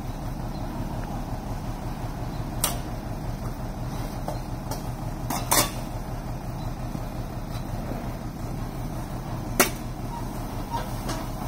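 Dump truck engine running steadily while its tipped bed unloads wood chips, with a few sharp knocks, the clearest a few seconds in, about halfway, and near the end.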